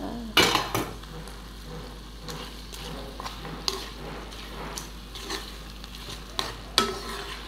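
Spatula scraping and knocking against a nonstick wok as sausage slices and dried anchovies are stir-fried in sambal chili paste, in irregular strokes over a low, steady sizzle. The sharpest strokes come about half a second in and again near the end.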